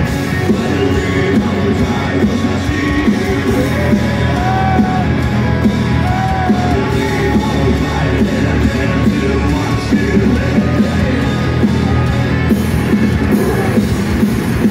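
A metal band playing loudly and continuously on stage, with distorted guitars over a steady driving drum beat, heard from within the crowd.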